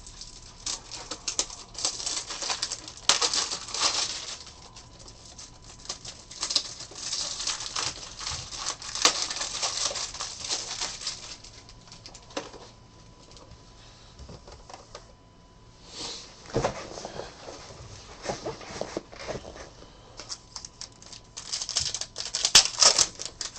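Plastic rustling and crinkling with quick clicks as trading-card top loaders and their packaging are handled, in several bursts with a quieter stretch about halfway through.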